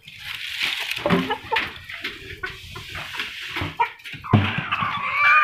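Hens in a wire cage rustling and knocking about, with sharp thumps about a second in and again near the end. A drawn-out hen call starts in the last second.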